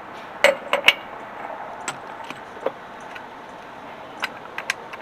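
Sharp metal clinks of a socket being fitted onto a hand torque multiplier: a quick cluster of three loud clicks in the first second, then a few lighter ticks.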